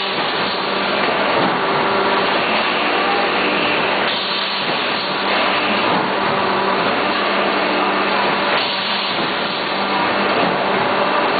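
PS foam food-container production machinery running steadily: an even, constant hiss with a low hum held on one pitch.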